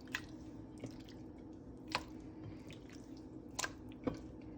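Raw chicken pieces being rubbed and mixed by hand in a thick, wet spice-and-yogurt marinade, with a few soft squelches and clicks, about four in all.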